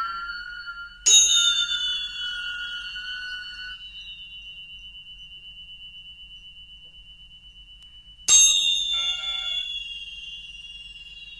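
Free-improvised percussion: metal percussion struck hard twice, about seven seconds apart, each strike ringing and slowly fading with overtones that glide downward, over a steady high ringing tone.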